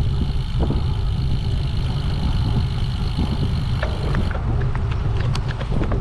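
Wind buffeting the microphone of a camera on a moving road bike, a steady low rumble with road noise over it. A few sharp clicks come near the end.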